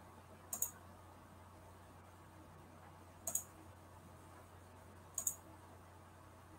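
Computer mouse clicking three times, a couple of seconds apart, each a quick double click, over a faint steady low hum.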